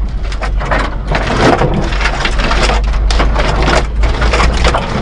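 Inside the cab of a 1992 Daihatsu Hijet Climber 660cc mini-truck rolling along a rough dirt track: a steady low engine and road rumble under a dense, uneven crunching and rattling as the tyres go over stones and the cab shakes over bumps.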